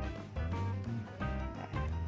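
Background music with a steady bass beat and melodic notes.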